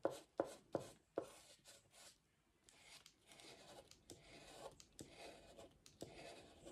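Red oil pastel rubbing on paper in faint back-and-forth colouring strokes: short quick strokes about three a second for the first two seconds, then longer, softer scrapes.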